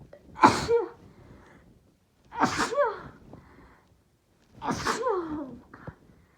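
A woman with a head cold sneezing three times in a row, about two seconds apart. Each sneeze is a sharp burst with a voiced tail that falls in pitch.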